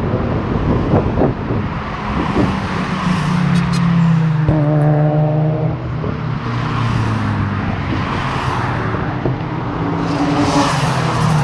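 Several modified road cars driving past one after another on a race circuit's straight, their engines rising and falling in pitch as each goes by.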